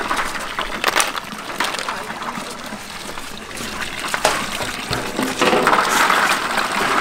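Water pouring from a tap into a large metal basin while hands swish and rub snails in the water, with sharp clicks of snail shells knocking together here and there; the splashing grows louder near the end.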